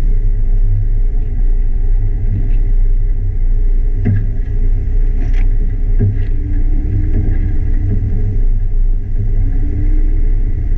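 Jeep Wrangler JK Rubicon driving off-road: a steady deep rumble, with a few sharp knocks around the middle and the engine note rising and falling gently twice in the second half.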